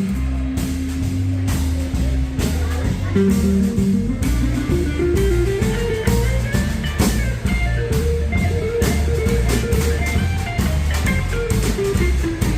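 Instrumental break in a band's pop song cover: a guitar melody that climbs and falls back, over a pulsing bass line and a drum kit keeping a steady beat.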